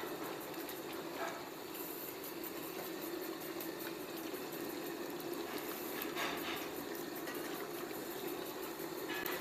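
Pieces of marinated hairtail (beltfish) deep-frying in hot oil at about six-tenths heat, a steady sizzle and bubbling crackle.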